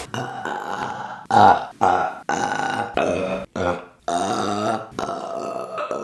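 A woman's loud burps, a rapid series of them one after another, each starting and stopping abruptly.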